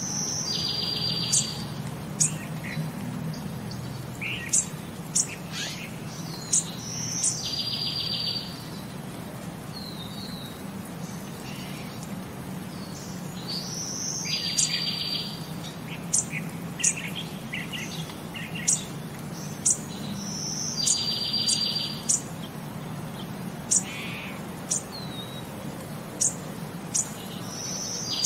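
Birdsong with sharp high chirps and short trills, the same pattern repeating about every six and a half seconds as a loop, over a low steady hum.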